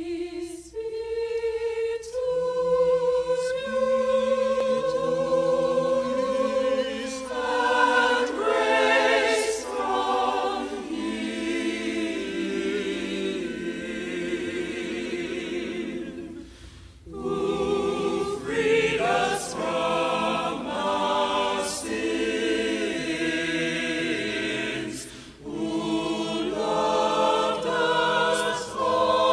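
Choir singing unaccompanied in several parts, the voices moving together in sustained chords, with short breaths between phrases about halfway through and again about two-thirds through.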